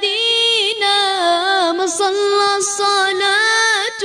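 A high voice singing an Arabic devotional song in praise of the Prophet Muhammad: long held vowels with ornamented, wavering turns of pitch between sung lines.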